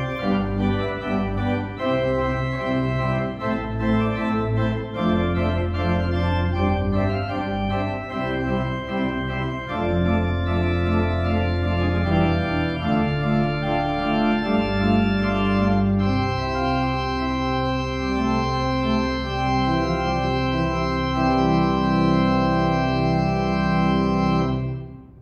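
Pipe organ playing sustained chords over deep pedal notes, moving through chord changes and then closing on one long held chord that stops abruptly near the end.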